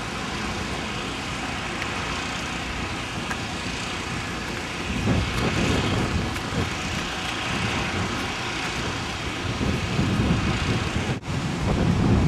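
Steady outdoor background noise with low, irregular rumbling from wind gusting on the microphone, swelling about five seconds in and again near the end, and cutting out briefly just before the end.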